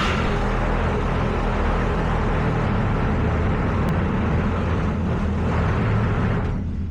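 An engine running steadily with a low, even rumble, easing off just before the end.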